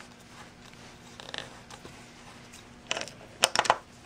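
A few light clicks, then a quick cluster of sharp metallic clicks and clatter near the end, as a hex key and a steel toggle clamp are handled and fitted on a plywood board.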